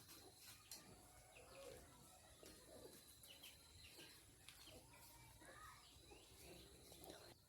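Faint, soft calls from chickens, short curved notes repeated throughout, with a few light clicks among them.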